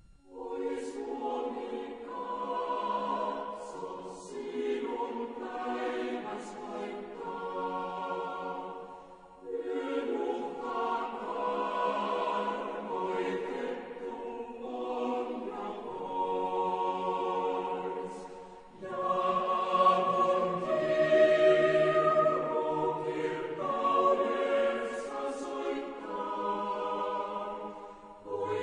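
Background music: a choir singing slow, held chords, with short breaths between phrases.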